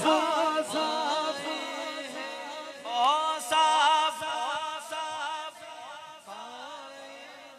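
A man's voice singing an Urdu naat through a PA system with a heavy echo effect. The sung lines repeat and die away, growing fainter toward the end.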